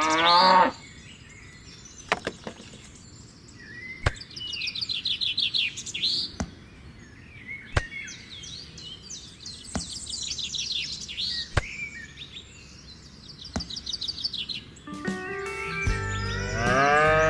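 Small birds chirping and trilling, with a cow mooing at the start and again near the end. A few sharp single knocks fall between, a couple of seconds apart.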